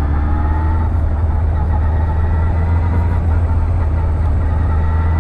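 Motorcycle engine running under way, its pitch slowly falling as the revs drop, over a steady heavy low rumble.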